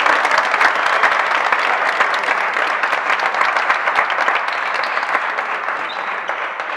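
Spectators applauding, a dense patter of hand claps that eases off slightly near the end.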